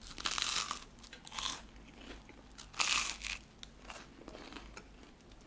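A person biting into and chewing freshly toasted light bread, the crisp toast crunching. There are three loud crunches in the first three seconds or so, then quieter chewing.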